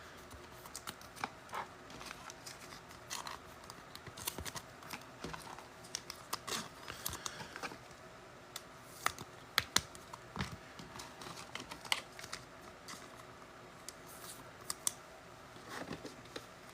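Irregular soft clicks, ticks and light rustles of trading cards and card packs being handled and sorted on a table.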